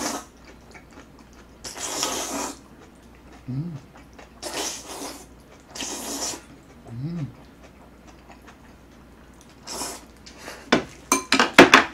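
A person slurping jjajangmyeon (noodles in black bean sauce) in three long slurps, with two short low hums in between. Near the end comes a quick run of loud smacking clicks from the mouth as he eats.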